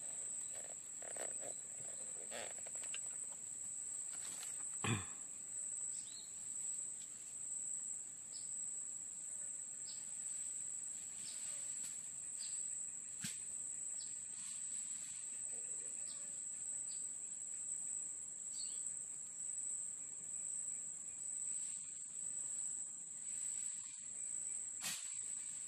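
Steady high-pitched drone of insects, with faint short chirps over it. A single sharp knock about five seconds in and another near the end.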